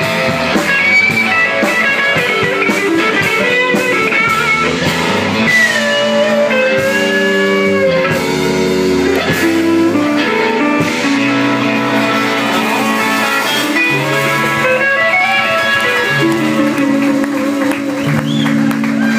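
Live blues band playing an instrumental passage: a lead electric guitar bending notes over stepping bass notes.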